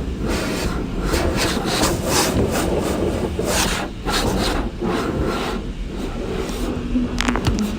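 Automatic car wash running: repeated swishing, rubbing strokes about twice a second over a steady low rumble, with a quick run of sharp clicks near the end.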